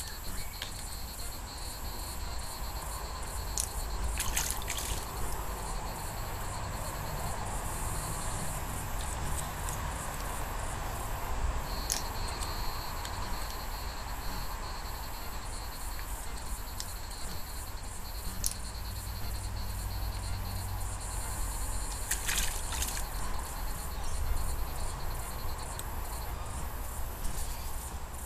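Insects trilling steadily at a high pitch. A second, lower steady trill joins about midway. A couple of brief rustles are heard, about a quarter of the way in and near the end.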